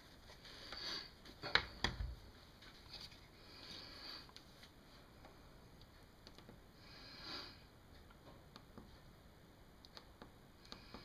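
Quiet handling of an e-reader: a couple of knocks with a low thump about two seconds in, a few soft breaths through the nose, and faint small clicks near the end.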